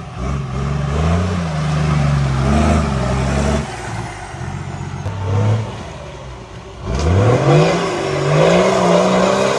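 Off-road 4x4 engine revving under load, its pitch wavering up and down. It eases off about three and a half seconds in, then revs up sharply about seven seconds in and holds higher.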